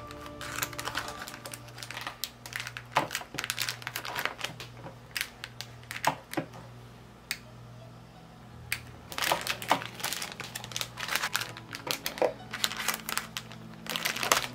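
Clear plastic bags crinkling, with irregular clicks and taps as hands press a small handheld heat sealer's clamp shut on them to seal the bags.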